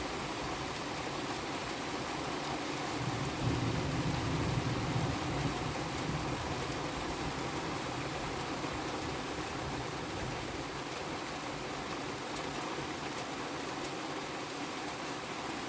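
Steady rain hiss during a summer storm, with a low rumble that swells about three seconds in and fades by about six seconds.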